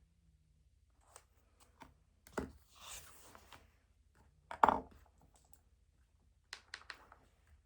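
Desk handling sounds while studying: scattered light clicks and taps, a brief rustle like paper being moved about three seconds in, and one sharper knock of an object set down near the middle, then a few more quick clicks near the end.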